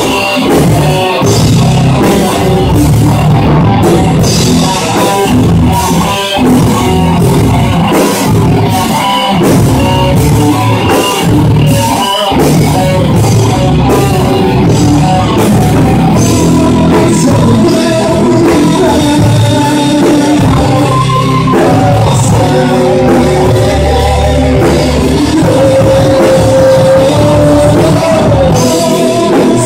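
Live rock band playing loudly on electric guitars, bass and drum kit, with steady drum hits. From about halfway through, a held melodic line with long notes rises above the band.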